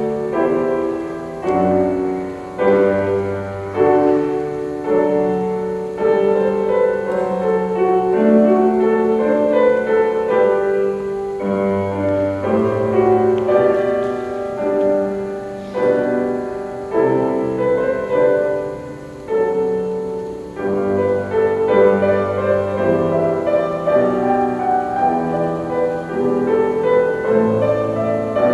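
Piano playing a slow classical piece in sustained chords that change about every second.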